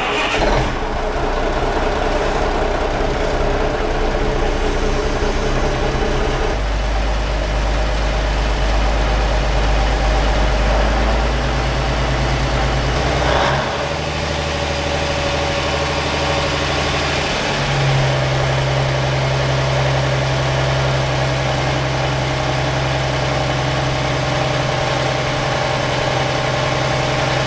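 Rebuilt Cummins 855 Big Cam 14-litre six-cylinder diesel running steadily on an engine dyno, on diesel and still warming up. Its low note changes abruptly a few times.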